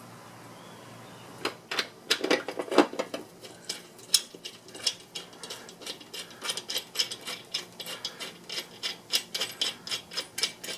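Hand ratchet clicking in quick, uneven strokes, after a few metal knocks about a second and a half in, as the bolts holding a new spindle assembly to a riding mower's deck are tightened.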